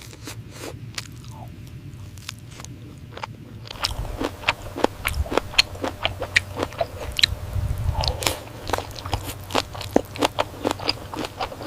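A woman chewing and biting into spicy octopus. Wet clicks and crunches come sparsely for the first few seconds, then turn dense and louder from about four seconds in.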